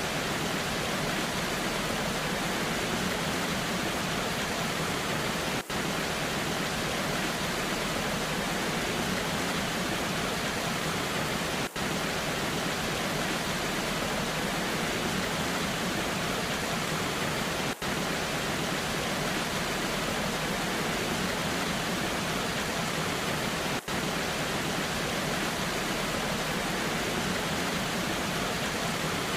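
Steady, even rushing of a waterfall with rain, an unbroken hiss across the whole range, broken by a brief dip in level about every six seconds.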